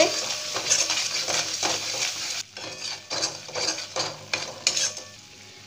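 Metal spatula stirring and scraping a thick masala paste around a metal kadai, with the paste sizzling in oil as it is fried down (bhuna). The strokes grow quieter near the end.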